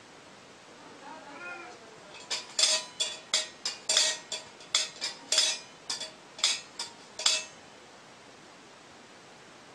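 A cat gives one faint meow, then comes a quick, uneven run of about fifteen sharp clinks, each with a brief ring at the same pitch, over about five seconds.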